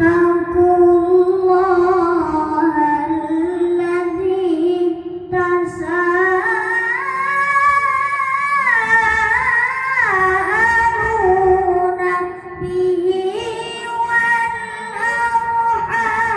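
A boy reciting the Qur'an in the melodic qiroah style into a microphone, amplified through a PA sound system. He holds long, ornamented notes that waver and glide, climbing higher in the middle and breaking for a breath about twelve seconds in.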